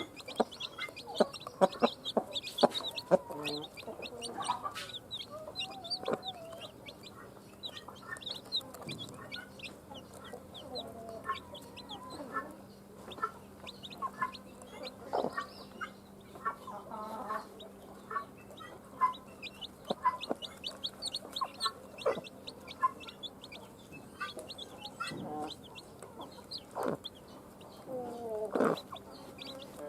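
Newly hatched chicks peeping continually in rapid, short, high chirps, with a mother hen clucking low now and then among them.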